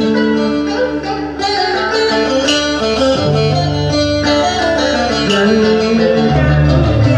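Instrumental passage of Vietnamese cổ nhạc, with plucked strings from an electric guitar and a đàn kìm (moon lute) playing between the sung lines.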